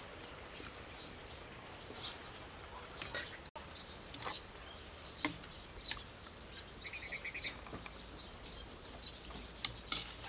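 Scattered short bird chirps over a faint steady outdoor background, with a few light metal clinks of a spatula or wire strainer against a wok.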